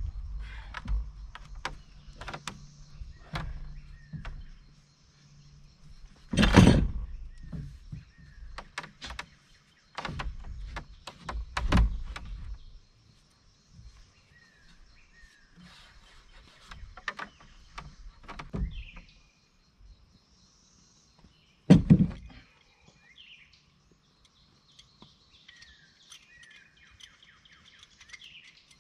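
Wooden wall frame knocking and thumping as it is raised and set against the framing, with loud thumps about six seconds in and again about twenty-two seconds in and smaller knocks between. Small birds chirp through the second half.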